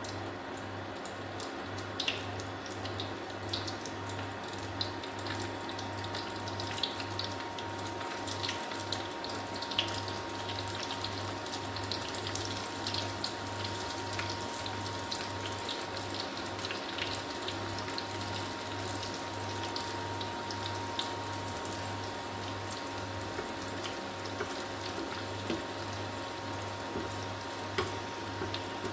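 Snacks deep-frying in hot oil: a steady sizzle with scattered sharp crackles, over a steady low hum.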